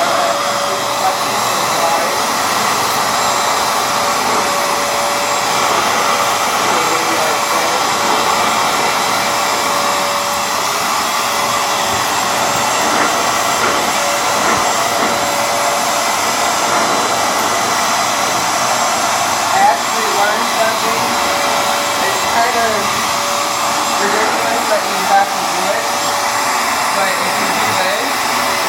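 Hoover FloorMate Edge hard floor cleaner running steadily: a constant motor noise with a steady hum tone through it, and a few brief wavering sounds over it in the second half.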